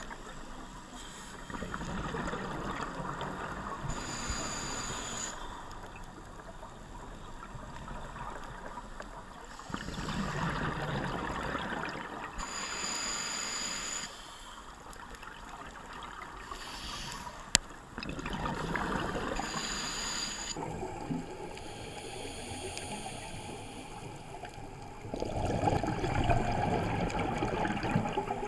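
Scuba regulator breathing heard underwater: exhaled bubbles gurgling in long bursts, four in all, about seven or eight seconds apart, with quieter stretches between. One sharp click about two-thirds through.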